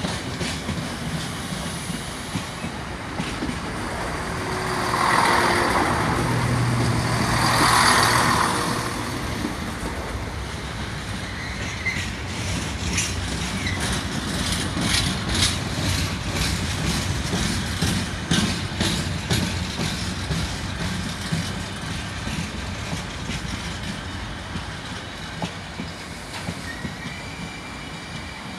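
Long freight train of Freightliner covered hopper wagons rolling past close by, wheels clicking over the rail joints. A diesel multiple unit passes on the adjacent line about five to nine seconds in, the loudest part.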